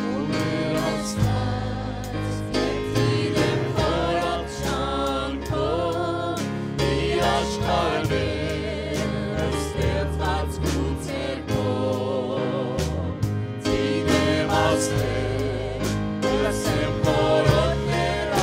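Choir singing a slow hymn in Armenian with instrumental accompaniment, the voices coming in at the start.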